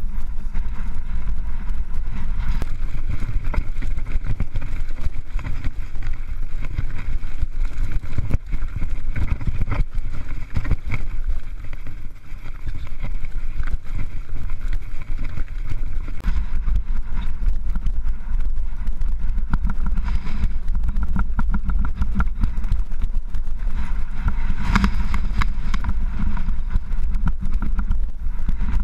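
Wind rumbling on an action camera's microphone, with the steady clatter and rattle of a mountain bike rolling fast over a rocky dirt trail.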